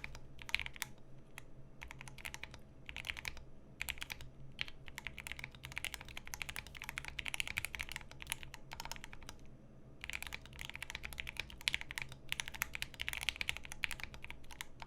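Mechanical keyboard with lubed Lil Tyke switches and PBT keycaps being typed on quickly in a typing test: dense runs of keystrokes, with short breaks just before four seconds in and around nine and a half seconds in.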